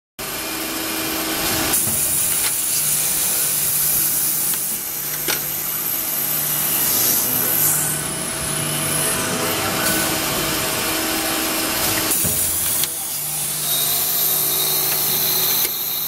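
Automatic padlock drilling machine running: drill spindles cutting padlock bodies with a steady whir and high hiss, broken by a few sharp knocks as the machine steps through its cycle.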